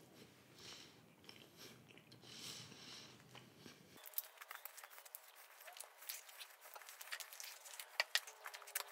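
Soft, close-up chewing of stuffed garlic bread, mouth closed. From about four seconds in come many small quick clicks and crackles.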